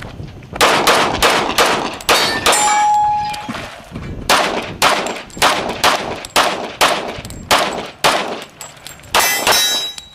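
A competition handgun fired in fast strings during a USPSA stage, about two to three shots a second, with a pause of about two seconds between the first string and the rest. Steel targets ring after some of the hits.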